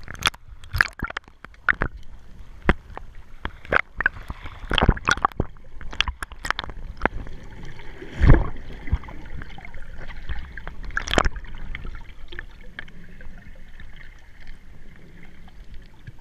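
Water sloshing and gurgling around a GoPro Hero3 in its waterproof housing as it goes from the surface to underwater. Irregular sharp clicks and knocks come through the first half, with a louder bang about 8 seconds in and another about 11 seconds in, then a steadier muffled underwater hiss.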